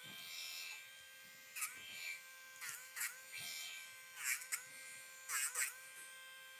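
Handheld rotary dog nail grinder whining steadily. Its pitch dips several times with a short scratchy grinding burst each time the worn sanding bit bites into the dog's toenail.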